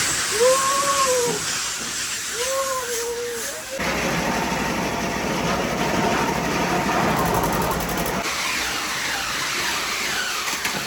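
Ice-crushing machine running with a steady rushing hiss as crushed ice is blown into a boat's fish hold; the sound changes abruptly twice, about four and eight seconds in. A few short calls sound over it in the first few seconds.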